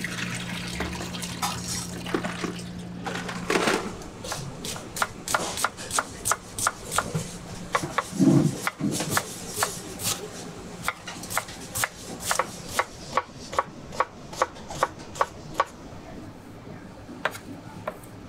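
Knife chopping on a cutting board at a steady pace, about two cuts a second. A low hum runs under it at first and stops about three and a half seconds in.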